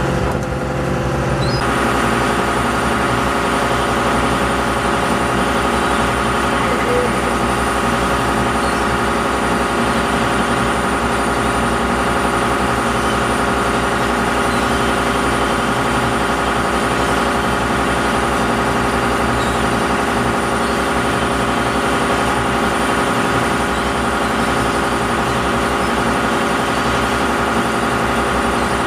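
Shrimp boat's engine running at a steady speed: a loud, even drone.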